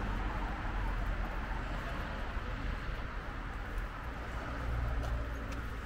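Outdoor city-park ambience: a steady wash of distant background noise with a low rumble underneath and no single clear source.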